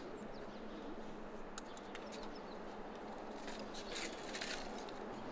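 Outdoor background noise with faint small-bird chirps and scattered light clicks, a few of them bunched together about three and a half to four and a half seconds in.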